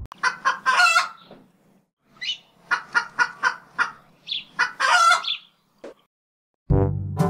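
Chickens clucking: two runs of quick clucks, each ending in a longer, louder call. A brass music cue starts near the end.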